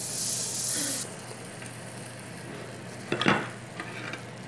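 Hiss of a portable gas stove's burner that cuts off abruptly about a second in. Then comes the quieter sound of a spatula stirring tomatoes in a small nonstick pan, with one louder clatter of utensil on pan about three seconds in.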